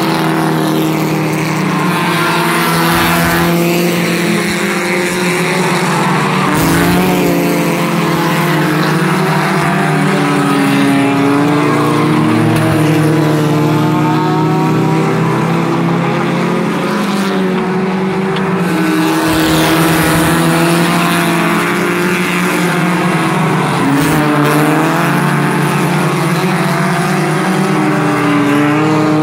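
Several Scrambler-class race car engines running together around a short oval track, their pitches rising and falling over one another. A car passes close by at the start and again near the end.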